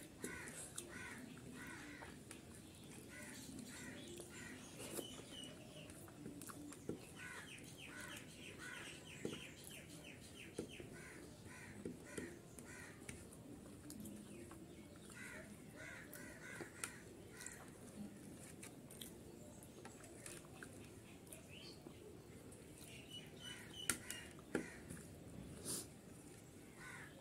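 Faint bird calls: groups of short repeated notes that come back every few seconds, the densest run about eight to eleven seconds in. Scattered soft clicks and smacks from someone eating by hand fall between them.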